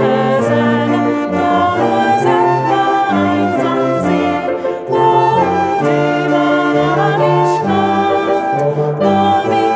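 Music from a small children's band: pitched instruments playing a melody over a moving bass line.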